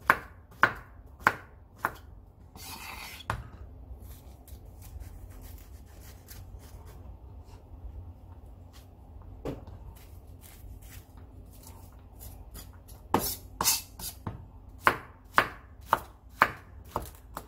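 Kitchen knife chopping Korean zucchini on a wooden cutting board: a few sharp strikes at the start and a short scrape, then a quieter stretch in the middle. From about two-thirds of the way in comes a steady run of chops, about two a second.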